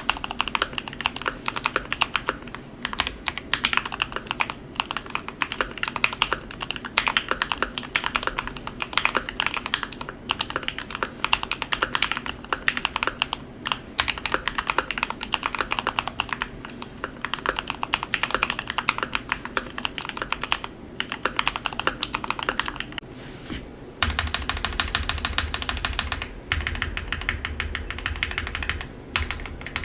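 Typing on a Keychron Q1 mechanical keyboard with lubed Gateron Ink Black linear switches: a steady stream of uneven keystroke clacks. Late on the keystrokes come in a faster, denser run with a deeper thud.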